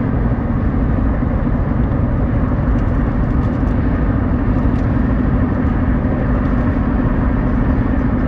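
Steady road noise of a car driving on a highway: an even rumble of tyres and engine with a constant low hum.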